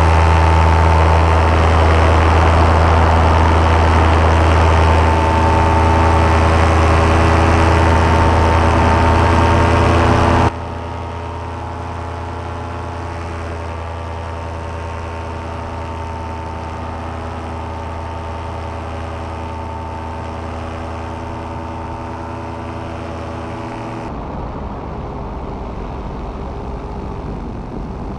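Paramotor engine and propeller running steadily in flight, a constant droning hum. About ten seconds in it drops suddenly to a quieter, duller drone that carries on, and it dulls again near the end.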